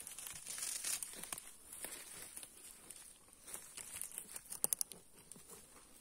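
Faint rustling and crackling of dry leaves and twigs underfoot in forest litter, with a short quick run of sharp clicks about two-thirds of the way through.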